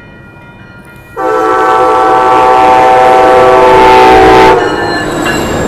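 Horn of an Amtrak Siemens Charger passenger locomotive sounding one long chord of several notes, the grade-crossing warning. It starts about a second in, holds steady for about three and a half seconds and cuts off sharply. The train's rumble carries on as it reaches the crossing.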